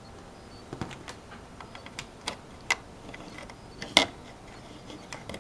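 Irregular sharp clicks and knocks from handling the opened wireless router's plastic case and circuit board, about seven in all, the loudest about four seconds in.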